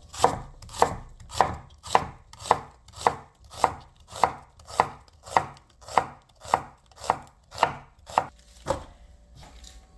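Santoku knife slicing an onion on a wooden cutting board: even, sharp knocks of the blade on the board, a little under two a second, that stop near the end.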